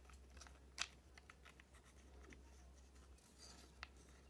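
Faint clicks and light rubbing of small plastic action-figure parts being handled and moved while the figure is transformed, with a sharper click about a second in and another near the end.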